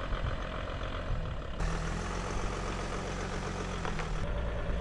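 Sprinter camper van's engine running steadily, with two abrupt changes in tone where the sound jumps between takes.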